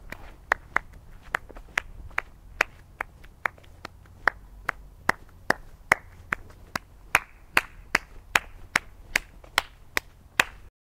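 A steady rhythm of sharp percussive clicks, about two and a half a second, some louder than others, over a low hum. It stops abruptly near the end.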